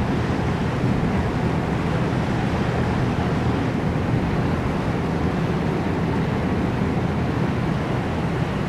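Steady low drone of a tour boat under way: engine hum mixed with the rush of wind and water passing the hull.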